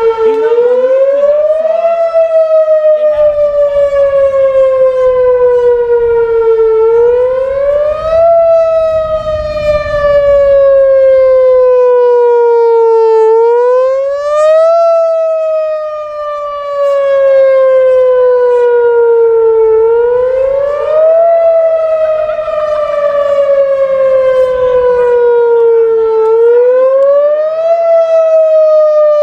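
Outdoor civil-defense warning siren sounding its wail, really loud: a single tone that climbs quickly, then slides slowly down, over and over, about once every six and a half seconds.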